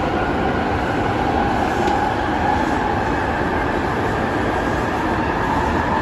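London Underground 1996 stock Jubilee line train heard from inside the carriage while running through a tunnel: a steady, loud rumble of wheels on rails with a wavering whine on top.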